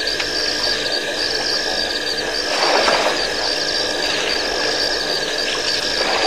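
Night chorus of insects at a waterhole: a pulsing, ratchet-like chirping that repeats about once a second. A brief rushing noise rises over it about halfway through.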